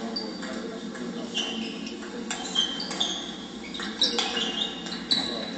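Table tennis rally: the ball clicks sharply off bats and table several times, with short, high-pitched squeaks of sports shoes on the hall floor, over a steady hall hum.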